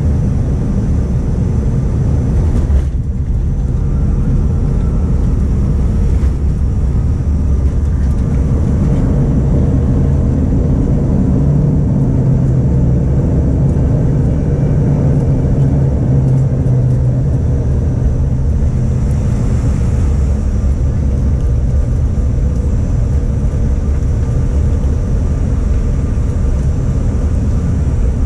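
Jet airliner cabin noise on the ground just after landing: a steady loud rumble of engines and rolling wheels. A low hum swells for several seconds in the middle.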